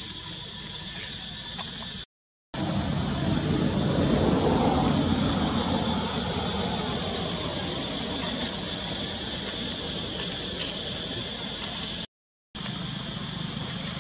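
Outdoor background noise: a steady high insect drone under a low rumble that swells a few seconds in and then fades, like a vehicle passing. The sound cuts out completely twice, briefly.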